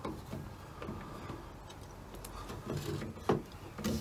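Hand screwdriver driving screws to mount a 6-inch car door speaker: irregular scraping and creaking as the screws turn, with two sharper knocks near the end.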